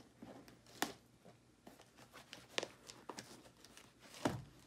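Cardboard box being handled: fingers picking and scratching at the tape on it, with a few small sharp clicks, and a louder knock about four seconds in.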